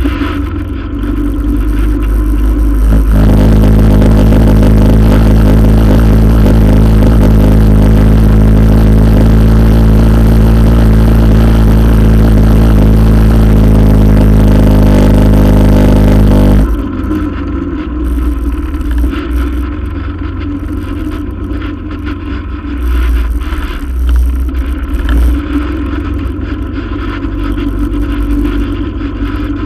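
ATV engine, loud from a camera on the front rack. About three seconds in it picks up to a steady, higher engine note and holds it for over ten seconds. It then drops off suddenly to a lower, uneven running with low rumble for the rest of the time.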